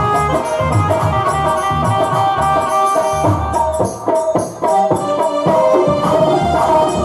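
Instrumental passage of Hindu devotional bhajan music: a held melody line over a steady drum rhythm, with a short break about four seconds in.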